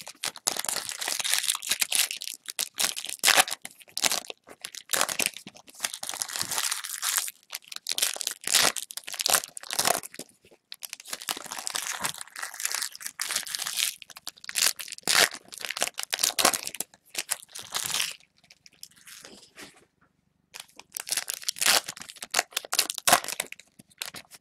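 Football card packs being torn open by hand: irregular tearing and crinkling of the wrappers as cards are pulled out, with a short lull about three-quarters of the way through.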